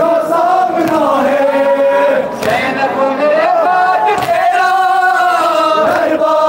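A Kashmiri noha (Muharram lament) chanted in unison by a large crowd of men, following a lead reciter, in a slow drawn-out melody. Sharp slaps of chest-beating (matam) come in time about every two seconds.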